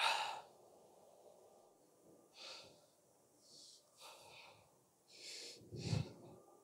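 A person breathing and sniffing close to the microphone: about six short, hissy breaths, the loudest at the start and near the end.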